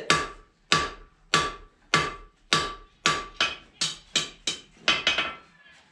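Blacksmith's hand hammer striking hot steel on an anvil in a steady rhythm, about one and a half blows a second, each with a short metallic ring. After about three seconds the blows come faster, with lighter taps between them.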